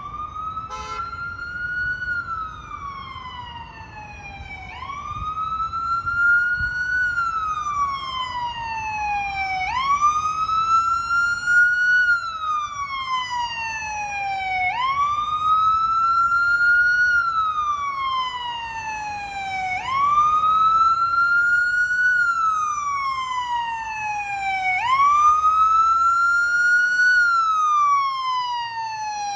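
Fire engine siren wailing, a slow rise and fall in pitch repeating about every five seconds, growing louder as the engine approaches.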